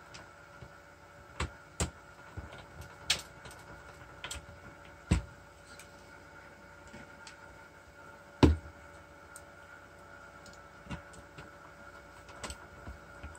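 Scattered clicks and knocks of a cassette deck's parts and casing being handled and fitted together during reassembly, with the loudest knock about eight and a half seconds in, over a faint steady hum.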